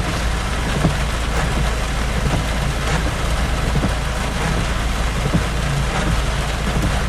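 Steady rain falling, with scattered drop ticks over a constant low rumble.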